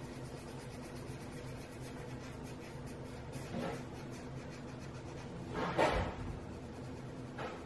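Derwent burnisher pencil rubbed in small circles over a layer of coloured pencil on paper, flattening the waxy layer: a faint scratchy rubbing with a few louder swishes, the loudest about six seconds in.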